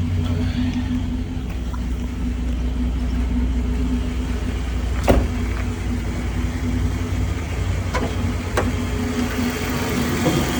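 Old truck engine idling steadily, running a lot smoother on a fresh oil change with Pro Lube. There is a sharp click about halfway through and two fainter clicks a few seconds later.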